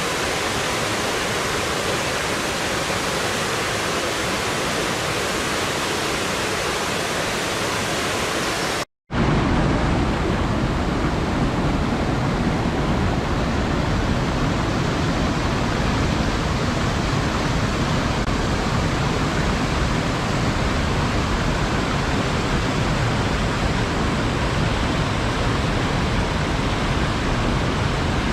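Waterfall: steady rushing water. About nine seconds in it cuts out for a split second and comes back deeper, with less hiss.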